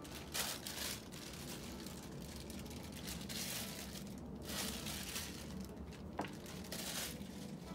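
Clear plastic wrapping crinkling in several spells as it is handled and pulled off replica wands, with a single sharp click about six seconds in.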